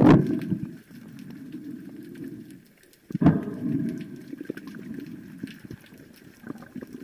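Underwater water noise on the camera's microphone: a low rushing and bubbling that surges at the start and again about three seconds in, then fades, with faint scattered clicks throughout.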